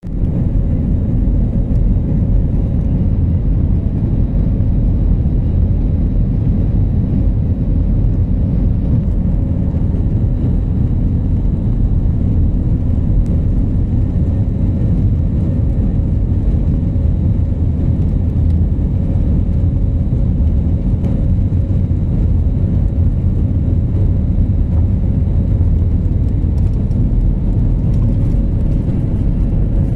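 Cabin noise of an Airbus A320-family airliner on its takeoff roll, heard from a seat over the wing: the jet engines at takeoff power and the runway rumble make a loud, steady low roar with a faint hum above it.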